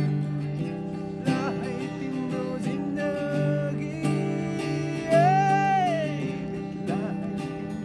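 A man singing while strumming an acoustic guitar, with one long sung note held about five seconds in.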